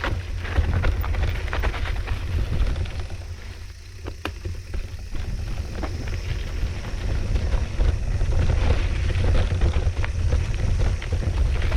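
Mountain bike ride on a dirt trail: wind buffets the microphone with a steady low rumble, while tyres crunch over the ground and the bike rattles with many small clicks. It eases briefly about four seconds in.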